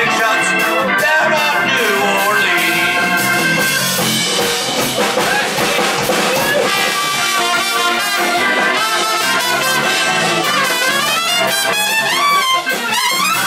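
Live New Orleans-style jazz band playing an instrumental passage, with a trumpet soloing on top over drums, piano and a woodwind. The trumpet line bends and shakes in pitch through the second half.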